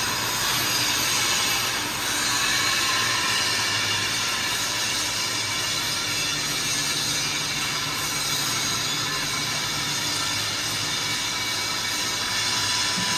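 A loud, steady hiss like rushing air or gas, with a faint low hum beneath it.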